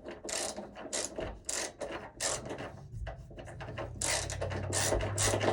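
Screws being driven into a breaker panel's metal cover with a screwdriver: a run of short, irregular scraping and ratcheting strokes. A low steady hum comes in about three seconds in.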